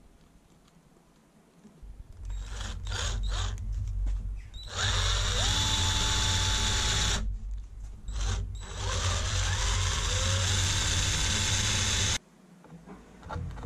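Handheld power drill with a twist bit boring into plywood. It starts with short stop-start bursts, then makes two longer steady runs, each spinning up with a rising whine; the second cuts off abruptly near the end.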